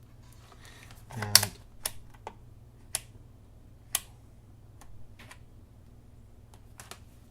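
Sharp, irregular plastic clicks and taps, about eight over several seconds, from a multimeter being handled while it is set to its lowest ohms range.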